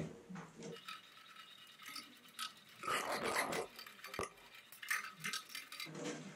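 Hand screwdriver working screws out of a microwave oven's sheet-metal frame: light scraping and small metallic clicks, louder for a moment about three seconds in.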